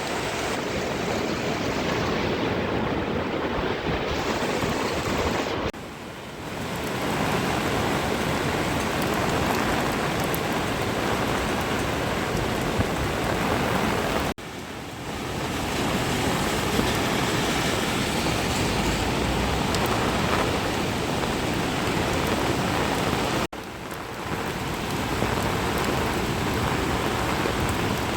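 A stream swollen with typhoon floodwater, rushing in a steady wash of noise that breaks off briefly three times.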